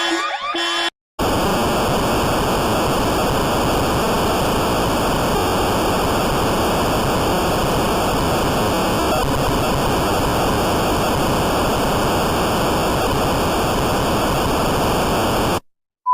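Loud, steady static hiss, like a dead broadcast signal, cutting in about a second in and stopping abruptly just before the end. It is preceded by the brief tail of a pulsing electronic alarm tone.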